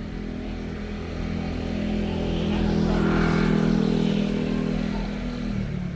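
A motor vehicle passing by: a steady engine note grows louder toward the middle, then drops in pitch and fades near the end.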